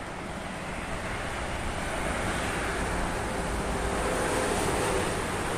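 Toll-road traffic passing below, the noise swelling as a bus drives underneath and reaching its loudest about five seconds in.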